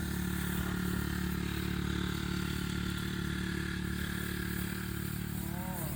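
Small engine running steadily at a constant speed, with no revving.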